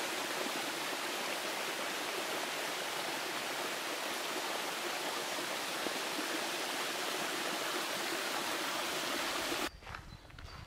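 A mountain stream rushing steadily, a dense even hiss of running water; it cuts off abruptly near the end.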